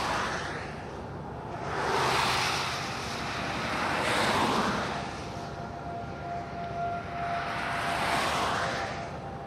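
Cars passing on a wet highway, each a rising and falling whoosh of tyre spray; three pass by.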